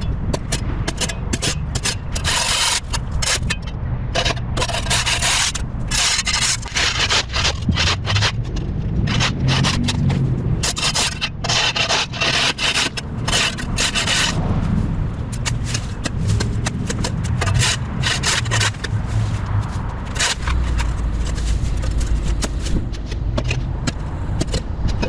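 Steel spade blade scraping along the edge of a concrete sidewalk in quick, irregular strokes, cutting and scraping dirt and grass off the concrete.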